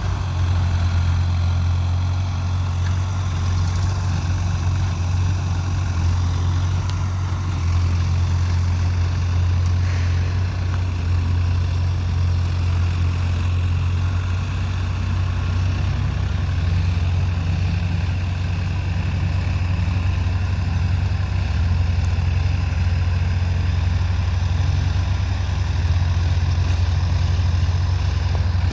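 Heavy diesel engine running steadily with a constant low drone, no revving or changes in speed.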